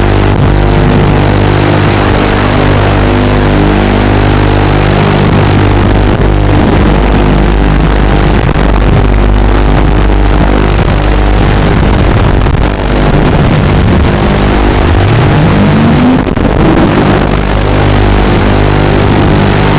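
FPV quadcopter's electric motors and propellers whirring loudly, the pitch shifting up and down with throttle, and one clear rising sweep as the quad punches out near the end.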